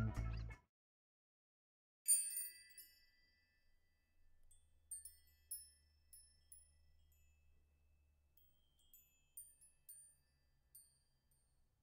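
Intro music fades out, then a bright chime sound effect rings out about two seconds in, followed by a few scattered, faint tinkling chime notes with near silence between them.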